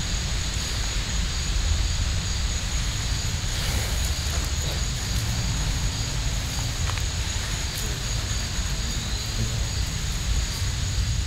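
Steady wind rumble on the microphone over a constant hiss, with a faint steady high tone above it and a few faint clicks.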